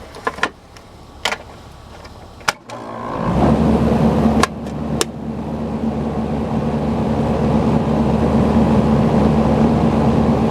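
Lennox 13-SEER straight-cool condenser unit with a new condenser fan motor starting up: a few clicks, then at about three seconds a steady hum kicks in and builds as the fan comes up to speed. It runs smooth and quiet, the sign that the motor replacement cured the fault.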